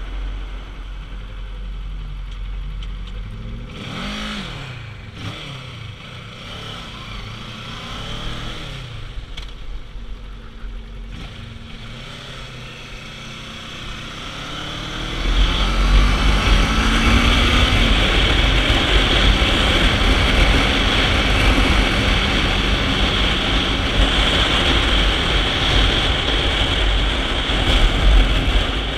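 Kawasaki Ninja 650's parallel-twin engine heard from the rider's seat, its pitch sliding down and up as the bike slows and pulls away in traffic. About fifteen seconds in the sound turns much louder as the bike speeds up, with a steady rush of wind noise over the engine.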